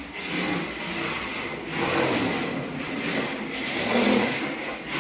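Reve D RDX 1/10 rear-wheel-drive RC drift car being driven: its electric motor and drivetrain whirring, swelling and easing several times with the throttle.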